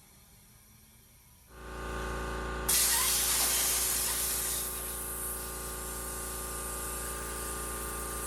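Compressed air hissing loudly and steadily into a motorcycle tyre through the open valve stem, its core removed, as it is inflated well past normal pressure to seat the bead. A steady motor hum comes in about a second and a half in, just before the hiss starts.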